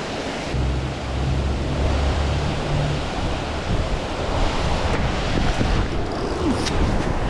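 Steady rushing water of a creek waterfall, an even hiss. Wind buffets the microphone with a low rumble from about half a second in to about three seconds.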